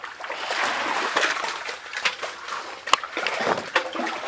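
Water splashing and sloshing as a net is lifted and worked in shallow water, strongest in the first second and a half, with a few sharp clicks or knocks later on.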